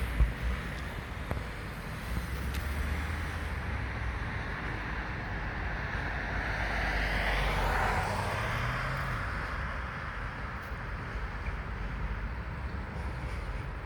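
A road vehicle driving past, its engine and tyre noise building to a peak about eight seconds in and then fading, over a steady low rumble.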